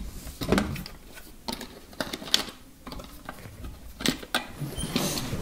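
Hard plastic clicking, knocking and rubbing as a clear waterproof shell is handled and pressed around a drone's egg-shaped plastic body, with irregular clicks scattered throughout and more near the end.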